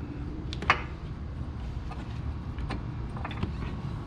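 A few light clicks and taps of a metal bolt and tools being handled, over a steady low hum.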